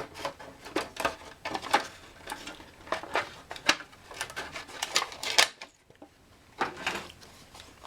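Thin plastic cut from a plant pot being handled at a workbench: a run of irregular crackles and clicks, with a short pause about five and a half seconds in before a few more.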